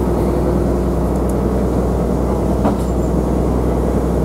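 Engine of the small passenger ferry Vesta running steadily under way: an even low drone that holds constant.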